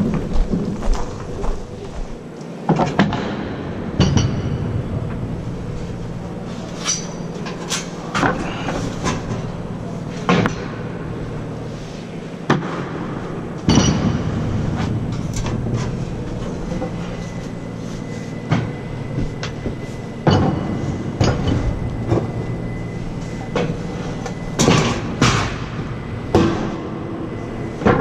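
Irregular knocks and clatter of hammer blows and timber on pipe formwork, a dozen or so strikes spaced unevenly, over a steady low hum.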